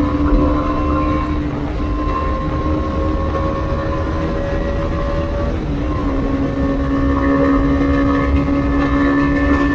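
Bajaj Dominar 250's single-cylinder engine running through its stock exhaust at a steady highway cruise, with a low rumble underneath and a slight shift in the engine note about six seconds in.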